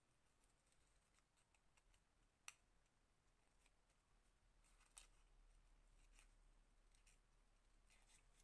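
Very faint snips of scissors fussy-cutting a small paper motif: a scatter of light clicks, with two sharper snips about two and a half and five seconds in.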